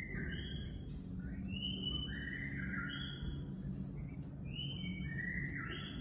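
Young peafowl giving repeated high whistled calls, a lower note followed by a higher one, every second or two, over a low steady hum.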